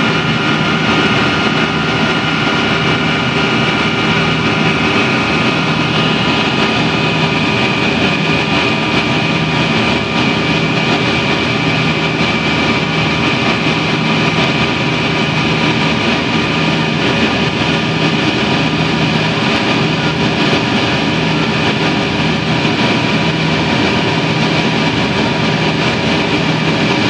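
Cabin noise of a Yak-42D airliner in flight after takeoff: its three rear-mounted Lotarev D-36 turbofans running at power, a steady rush of engine and air noise with several steady whining tones over it.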